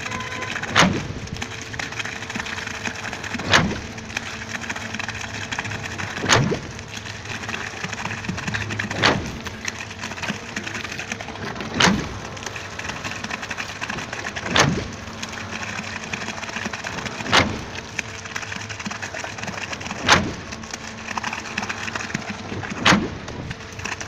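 C3 diesel concrete mixer pump pumping concrete through its delivery pipe: a steady running noise with a sharp knock about every two and three-quarter seconds, nine in all. Each knock comes as the pump changes stroke and concrete surges from the pipe outlet.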